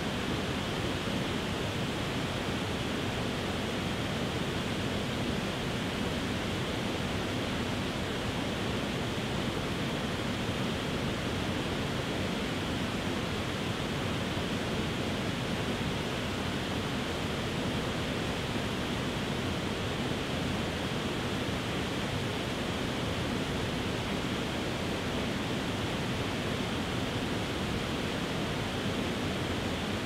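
Tiered waterfall cascading over rock ledges into shallow pools: a steady, even rush of falling water.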